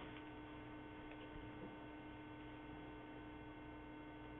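Faint, steady electrical hum in the recording, made of several constant tones over low background hiss.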